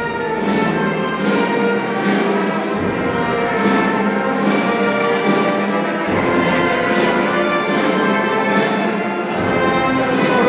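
Band with brass instruments playing a slow processional march, with a percussion stroke on a steady beat a little more than once a second. The sound rings with the echo of a large hall.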